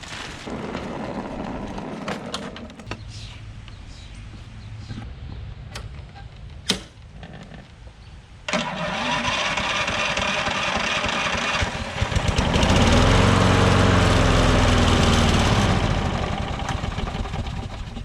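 Clicks and handling noises, then the Craftsman self-propelled mower's engine is started with its electric starter partway through. It starts abruptly, rises in pitch and runs loudly for a few seconds, then slows and fades, the mower failing to stay running.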